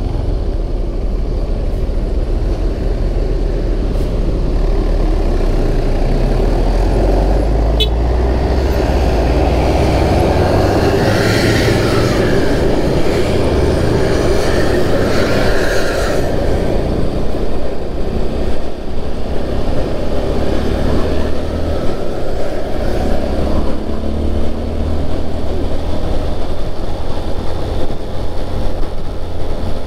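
Steady road traffic noise heard from a moving vehicle: low wind and engine rumble, with a louder, brighter stretch about a third of the way in as another vehicle goes by.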